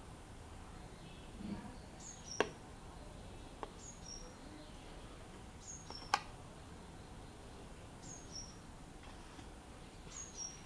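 A small bird repeating a short, high two-note chirp that drops slightly in pitch, about every one to two seconds, over faint background noise. Two sharp clicks stand out, about two and a half and six seconds in.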